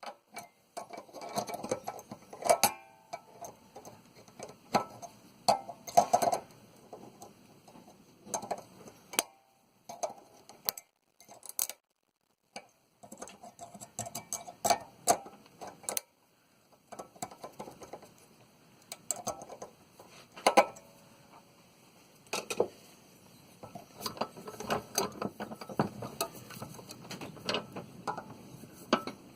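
Hand tools working on a hot water tank pressure relief valve, prying at its spring-loaded mechanism: irregular metallic clicks, taps and scrapes with short ringing clinks, and a brief lull near the middle.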